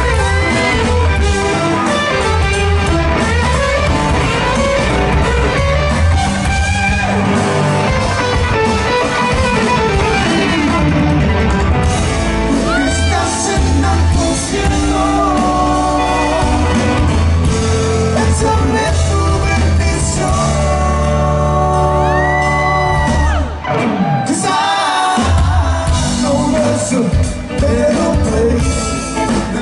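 Live rock band playing: electric guitars, bass guitar and drum kit, heard in a large hall.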